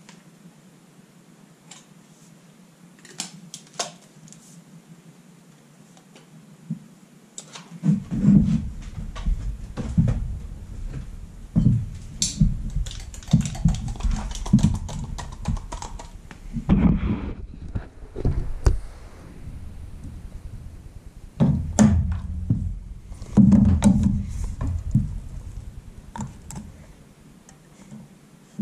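A few light clicks as a caulking gun is loaded with a tube of caulk. From about eight seconds in, close handling noise: irregular knocks, bumps and rubbing as the action camera is gripped and moved, which dies away near the end.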